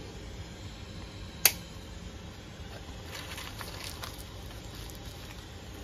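Butter melting and sizzling faintly in a hot nonstick frying pan on a gas stove, with faint crackles a few seconds in. A single sharp click about a second and a half in.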